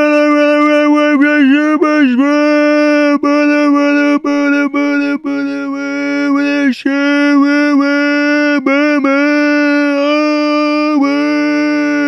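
Goofy meme scream sound effect: a voice screaming one loud, long held note, broken by brief catches and short gaps.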